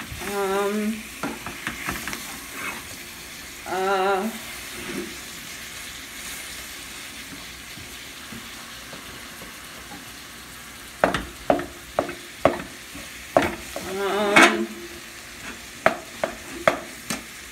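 Broccoli and garlic sizzling in olive oil in a pot, with a spoon stirring and knocking against the pot, the knocks coming thickest and loudest in the last third. Three short wavering pitched tones also sound, right at the start, about four seconds in, and near the end.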